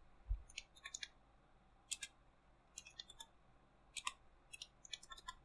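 Computer keyboard being typed on: about a dozen faint key clicks, irregular and in small clusters.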